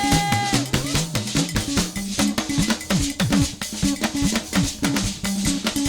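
Church praise band playing between sung lines: percussion and drums keep a quick, steady rhythm over a sliding bass line, after a held sung note ends about half a second in.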